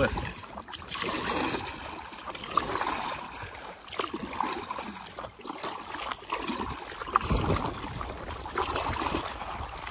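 Lake water lapping and gurgling, with a couple of sharper splashes about two and a half seconds in and again about seven seconds in.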